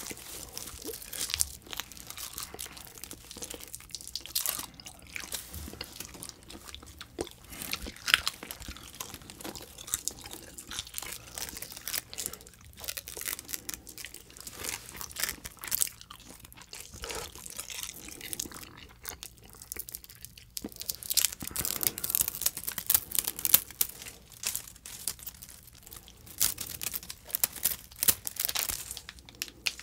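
Close-miked ASMR sounds of edible tape candy: irregular crinkling and tearing as strips are peeled off the roll, mixed with crunching and chewing. It gets busier in the second half.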